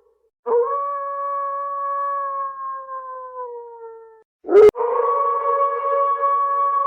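Wolf howling: a long, steady howl that starts about half a second in and sinks slightly in pitch as it fades. A sharp click comes just after four and a half seconds, and a second long howl begins right after it.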